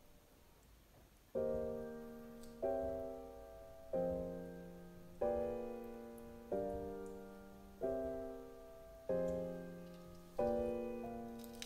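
Background piano music: slow, evenly spaced chords struck about every second and a quarter, each fading before the next, starting about a second in.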